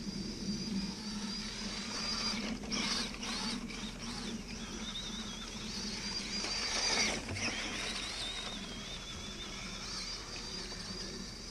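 Axial SCX10 Deadbolt RC crawler's electric motor and drivetrain whining as it is driven, the high whine wavering up and down with the throttle. There are a few short noisy bursts, one a few seconds in and a louder one in the middle.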